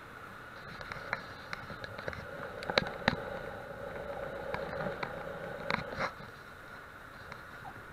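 Single-engine light aircraft's engine and propeller droning steadily, heard from inside the cockpit during a low pass down the runway, with several sharp clicks and knocks scattered through it, the loudest about three seconds in.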